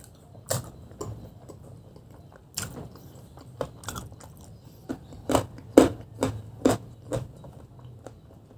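Close-mic eating sounds of spicy fried chicken: biting and chewing with short, sharp crunches, which come thickest in a run from about five to seven seconds in.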